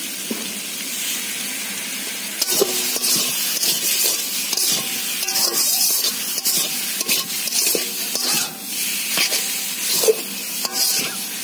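Long metal spatula scraping and knocking against a metal karahi as taro leaves and prawns are stir-fried, over a steady sizzle. The sizzle is heard alone at first; the scraping strokes start about two and a half seconds in and repeat irregularly, the pan ringing briefly after some of them.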